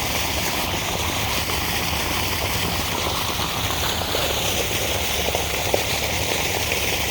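Steady rushing noise of moving water, with a low rumble underneath.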